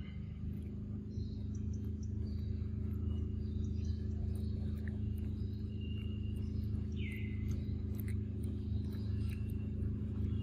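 Forest ambience under a steady low hum. Birds give short high whistles over it, one sliding downward about seven seconds in, and faint high ticking runs throughout.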